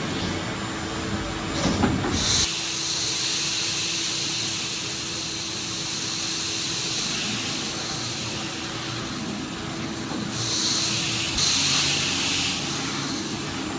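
Pressure washer running and spraying: a steady high hiss of spray over a constant motor hum, the spray growing louder in two bursts a few seconds from the end.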